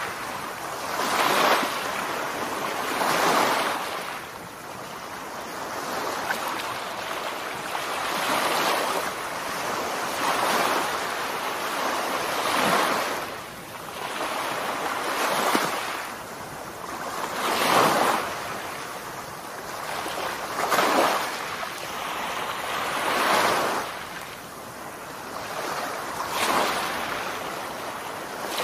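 Small waves breaking and washing up on a sandy beach, the surf swelling and fading about every two to three seconds.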